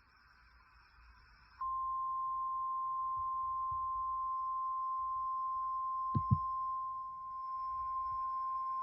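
NOAA Weather Radio 1050 Hz warning alarm tone: a single steady beep that starts sharply about one and a half seconds in and holds, with two short clicks about six seconds in. The tone signals that an urgent weather warning broadcast follows.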